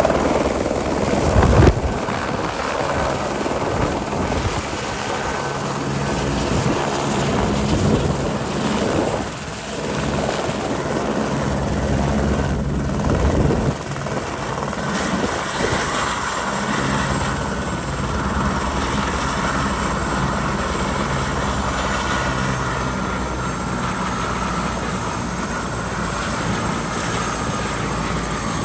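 Light single-engine helicopter running close by: the low beat of its main rotor with the turbine's whine over it. Near the end the high whine slowly falls in pitch.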